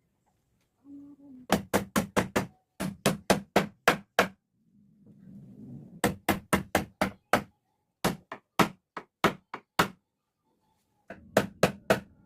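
Hammer striking wood in quick runs of four to seven blows, about four a second, with short pauses between runs.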